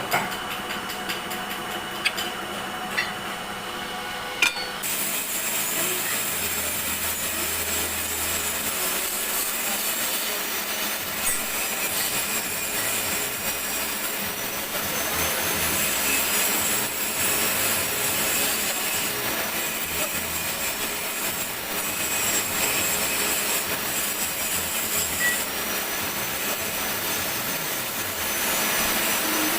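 Metal being worked on a running lathe: a few sharp clicks, then about five seconds in a steady scraping hiss begins, with a faint high whine under it.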